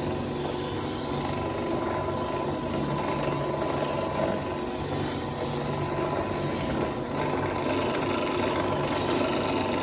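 Drill press running with a 4-inch sanding ball spinning against the inside of a dried gourd: a steady motor hum under the rasping of the abrasive ball scraping loose pith from the gourd shell.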